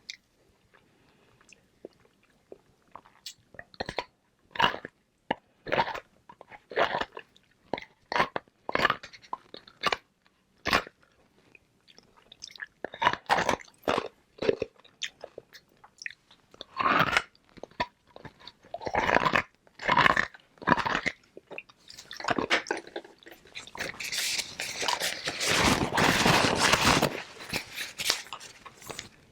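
Hard flavored ice balls being bitten and chewed close to the microphone: crisp crunches about once a second, running into denser, louder continuous crunching near the end.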